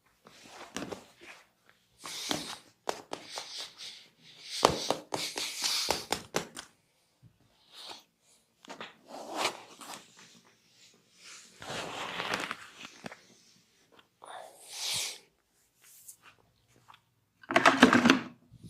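Hands massaging a body: irregular bursts of rubbing and brushing over skin, with quick taps and clicks in between and a louder stretch of rubbing near the end.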